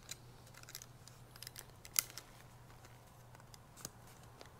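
Faint metallic clicks and light scraping as a piston compression ring is spread by hand and worked over a Chevy 2.2 Ecotec piston into its groove, with one sharper click about two seconds in. A faint steady low hum runs underneath.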